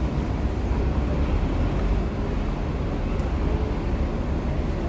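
Steady low rumble of wind buffeting the microphone outdoors, churning unevenly with no clear pitch.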